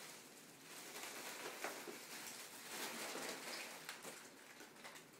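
Faint hiss and crinkle of a foil helium balloon as helium is drawn out of its neck by mouth.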